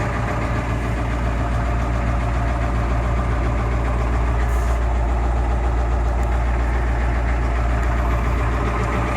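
A 1992 Ford F-250's 7.3-litre IDI V8 diesel idling steadily soon after a cold start on freshly replaced glow plugs.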